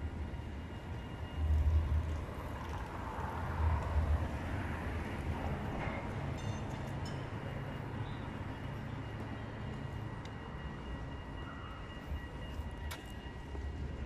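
Rotterdam tram, an Alstom Citadis, running past on its rails: a steady low rumble with wheel-on-rail noise swelling over the first half, and a faint steady high whine. Two louder low thumps come about two and four seconds in.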